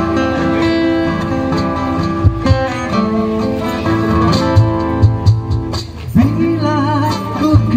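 Live acoustic band music through a PA: two acoustic guitars strumming, with low drum thumps. A male voice comes in singing with vibrato about six seconds in.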